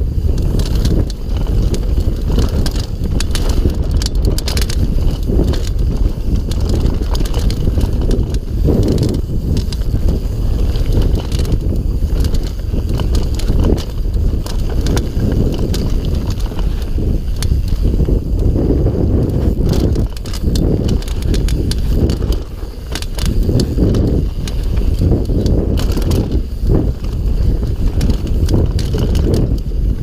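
GT Sanction mountain bike descending a dirt forest trail at speed, heard from a chest-mounted camera: a constant low rumble of tyres rolling over packed dirt and stones, with many small knocks and rattles from the bike over the bumps.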